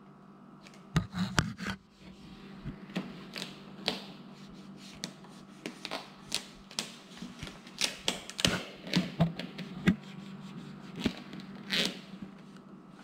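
Tint film crinkling and clicking as fingers tuck and press it around a car tail light: irregular sharp clicks, busiest about a second in and again from about eight to ten seconds in. A steady low hum runs underneath.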